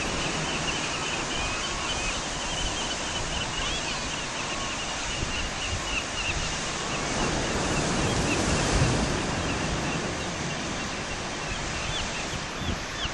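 Surf washing and breaking over boulders with wind on the shore. Over it comes a steady chatter of many short, high bird calls.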